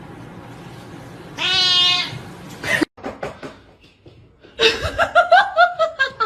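A cat gives one drawn-out meow about one and a half seconds in. In the second half a person laughs in quick bursts.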